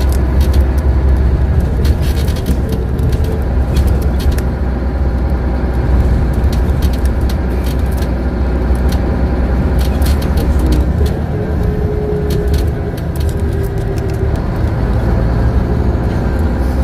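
Scania N94UD Omnidekka double-decker bus with ZF gearbox driving, heard from inside the passenger saloon: a loud, steady low engine drone with scattered clicks and rattles. About eleven seconds in, the drone eases for a couple of seconds and a faint whine shows.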